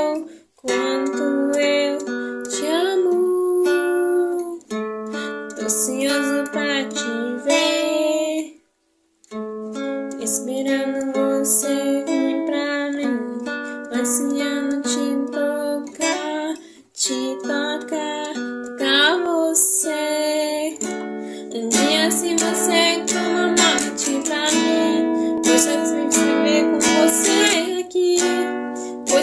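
Acoustic guitar (violão) playing a worship song. It breaks off briefly about half a second in, again near nine seconds in, and again near seventeen seconds in.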